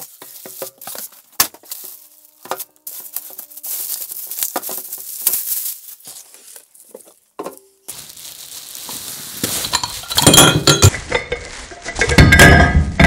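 Plastic wrapping and foam packing rustling and crinkling with scattered knocks as a resin 3D printer is unpacked. Then two spells of loud clattering, the second near the end, as the printer's metal build plate comes loose and drops to the floor.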